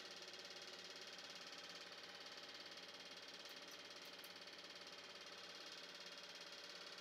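Faint, steady mechanical whirring with a fast, even ticking, typical of a cine film projector running.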